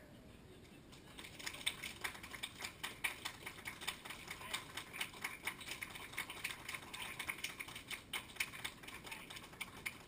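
Rapid, irregular light clicking and tapping, several clicks a second, starting about a second in.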